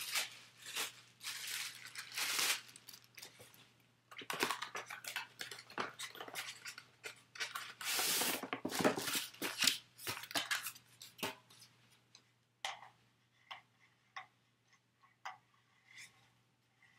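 Handling noise from unpacking a spiral fluorescent light bulb and its cardboard box: dense rustling and clicking for about eleven seconds, then a few scattered light clicks, over a faint steady hum.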